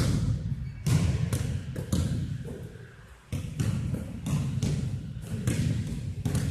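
Basketball bouncing on the gym floor as it is dribbled: a run of irregular thuds, one or two a second, each with a short echo in the large hall.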